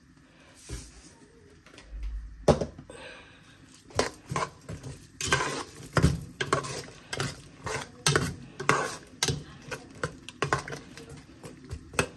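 A metal spoon stirring onions, spices and water in a stainless steel pot, clinking and scraping against the pot in quick, irregular strokes that start about two and a half seconds in.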